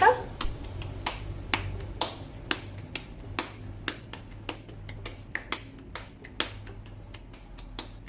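Hands working a ball of crumbly sorghum ghribia dough: a string of light, sharp taps and clicks, about two a second, over a faint low hum.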